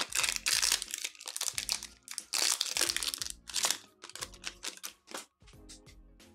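Foil wrapper of a Panini Prizm soccer trading-card pack crinkling in the hands as it is opened and the cards are slid out. Near the end it gives way to fainter ticks and rustles as the stack of cards is handled.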